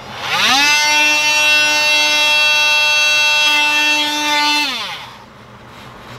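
Battery-powered tool's electric motor spinning up quickly, running steadily at one pitch for about four seconds, then winding down and stopping.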